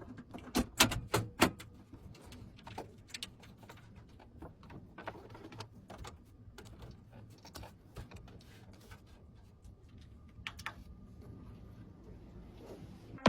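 Irregular light clicks and taps of computer hardware being handled, with a quick cluster of louder clicks in the first second and a half and sparser ones after.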